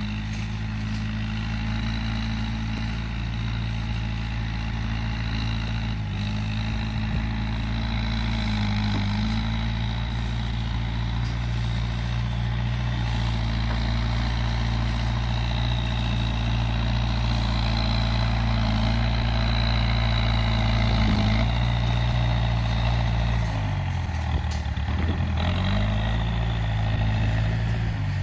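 Case 580G backhoe loader's engine running steadily while working, its pitch dipping and coming back up near the end as it takes a load and recovers.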